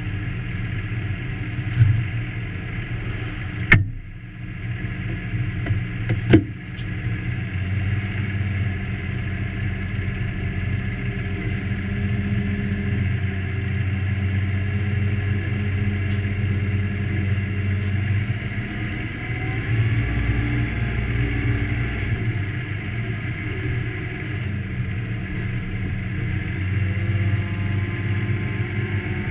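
Fendt 724 Vario tractor's six-cylinder diesel engine running steadily, heard from inside the cab while working a six-furrow reversible plough. A few sharp clicks or knocks sound in the first several seconds.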